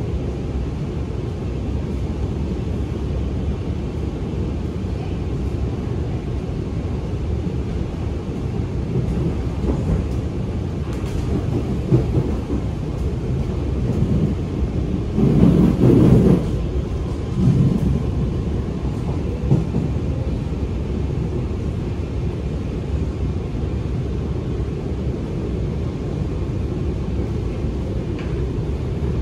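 Cabin noise of an Alstom Movia R151 metro train running on the track: a steady low rumble. About halfway through it swells for a second or two, with a few sharp knocks around it.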